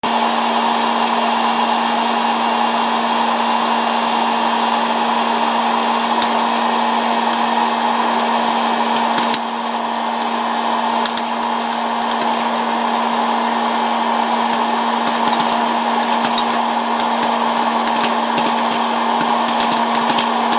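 Hot-air popcorn popper running: a steady blower hum and rush of hot air, with kernels popping as sharp cracks that come more often in the second half as the batch gets going.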